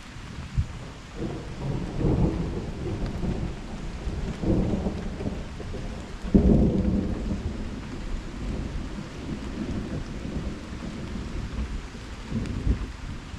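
Thunder rumbling in rolling swells over steady rain, the loudest peal about six and a half seconds in.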